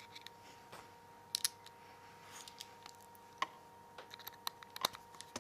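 Small, irregular clicks and taps of tiny screws and a T5 Torx screwdriver being handled and fitted into the Nokia N8's bottom cover, with two sharper clicks about a second and a half in and near the end.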